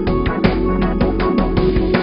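Background music with a steady beat of regular drum hits.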